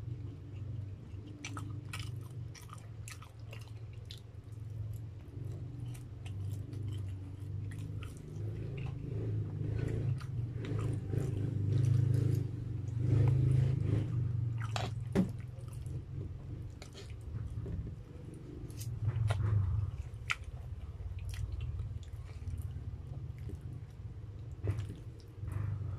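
Close-miked chewing and biting of spaghetti and fried Spam, wet mouth sounds with many short sharp clicks and smacks scattered throughout. It is loudest about halfway through.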